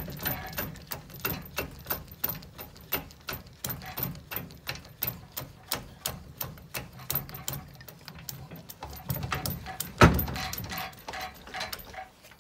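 Boat trailer tongue jack being hand-cranked, its gearing clicking about three times a second, with one loud metal clunk about ten seconds in.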